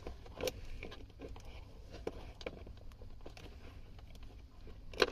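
Faint, scattered clicks and light rustles of handling as multimeter test probes and their leads are pressed against the wires of a car's 12-volt accessory socket, over a low steady rumble.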